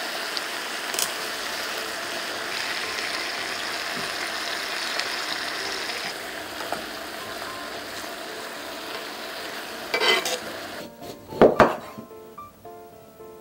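Pork neck steaks, garlic and pineapple rings sizzling in sauce in a cast-iron skillet, with a few clicks of tongs. The sizzle eases slightly about halfway through as pineapple juice goes in. Near the end it stops, and a knife cuts through a sweet pumpkin (kabocha) onto a wooden board with two loud thuds.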